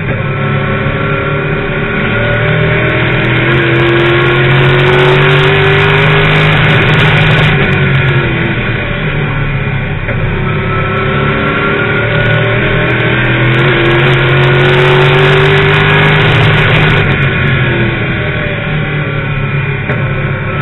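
Late model stock car's V8 engine heard from inside the cockpit at racing speed: it winds up along each straightaway and drops as the driver lifts for the turns, twice over.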